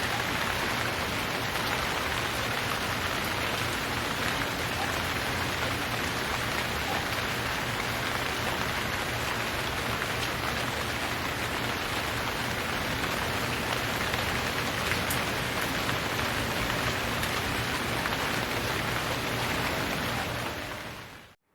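Steady, dense rain falling on a surface, an even hiss of many drops, fading out to silence near the end.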